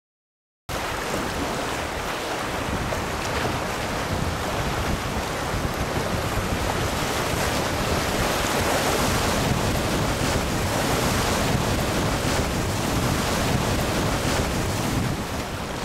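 Rushing whitewater of a river rapid heard from a canoe running through it, with wind buffeting the microphone. It starts abruptly under a second in, after silence, and stays loud and steady.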